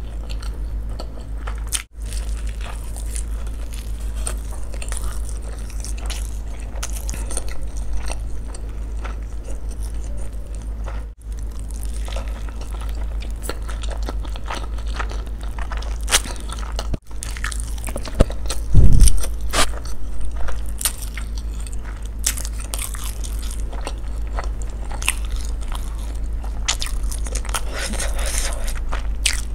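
Close-miked eating: crunchy bites and wet chewing of a spicy, noodle-filled rice paper wrap, with a steady low electrical hum underneath. A single loud low thump comes about two-thirds of the way through.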